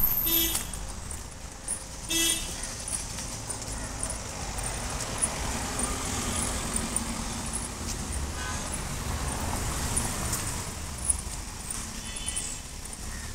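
Street traffic: a steady hum of passing cars with short vehicle horn toots, two clear ones near the start about two seconds apart and fainter ones later.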